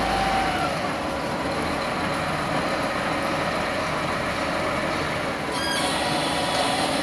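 Steady noise of road traffic and running engines, with a brief high squeal about five and a half seconds in.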